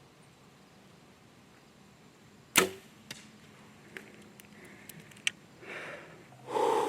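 A bow being shot at a deer: one sharp snap of the string and arrow release about two and a half seconds in, then scattered small clicks and a louder rustling burst near the end.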